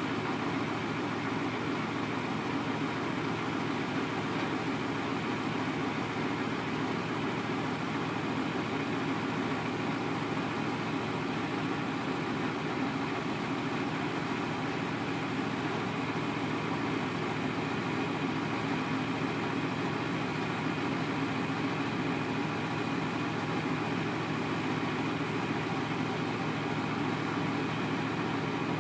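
Diesel engine of a yard spotter truck idling steadily, running the hydraulics that tip up an end dump trailer's box.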